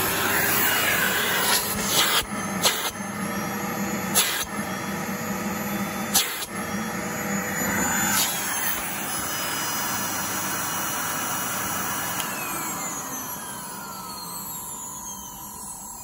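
Henry HVR200 vacuum cleaner running after switch-on, its motor speeding up with a rising whine and carrying high squealing tones from worn, squealy motor bearings, with several knocks in the first half. Over the last few seconds its pitch sinks and it grows quieter.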